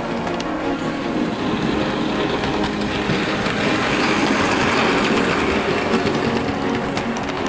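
OO gauge model steam locomotive running along the track, its motor and gears whirring, louder as it passes close by about four seconds in.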